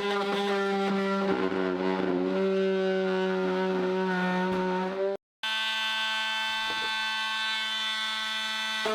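Dremel rotary tool running at high speed as it cuts a circular opening for an air-conditioner vent hose: a steady high whine whose pitch sags and wavers as the bit bites in. The sound cuts out for an instant about five seconds in, then runs on steady.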